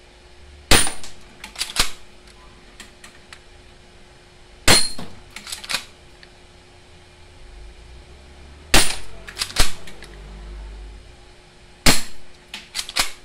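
Spring-powered C15A airsoft pistol, a metal-bodied Glock 17 copy, firing four single shots about four seconds apart. Each shot is a sharp snap followed by a quick run of lighter clicks.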